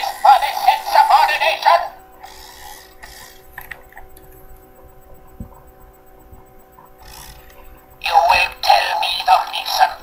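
Remote-control Davros toy speaking in its tinny, electronically distorted voice through its small built-in speaker: one phrase at the start and another about eight seconds in, with a quiet gap between.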